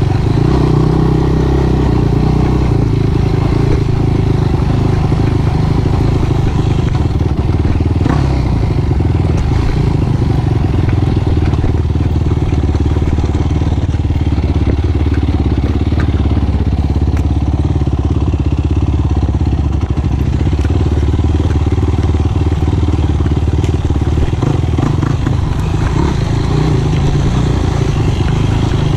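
Sport quad's single-cylinder four-stroke engine running steadily under way, with a few small knocks and rattles over it.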